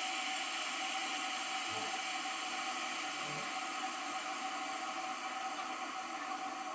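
Xiaomi Mi electric kettle heating water: a steady rushing hiss with a faint hum.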